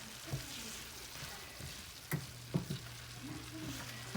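Shredded cabbage sizzling in a frying pan, stirred with a utensil that knocks against the pan a few times, most sharply about two and a half seconds in.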